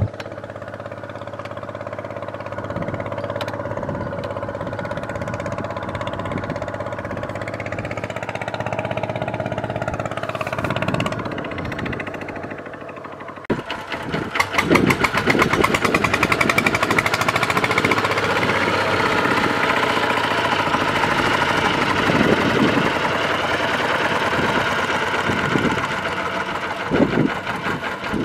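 Small diesel tractor engine running steadily. About halfway in, the sound switches to the louder, rapid knocking beat of a two-wheel walking tractor's single-cylinder diesel engine, run hard while the machine is stuck in mud.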